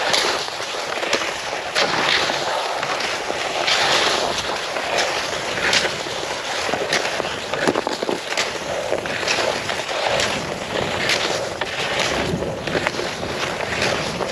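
Cross-country skis scraping and gliding over snow, with a crunch about once a second as the skier strides and plants the poles.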